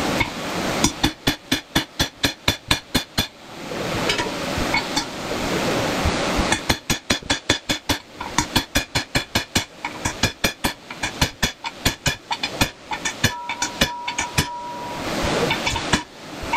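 Two rapid runs of sharp knocks, about seven a second, separated by a steady rushing noise from a shop fan. A brief steady tone sounds near the end.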